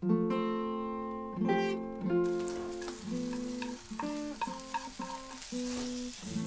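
Food sizzling as it is fried in a pan and stirred with chopsticks, starting about two seconds in, over plucked acoustic guitar music that begins suddenly at the start.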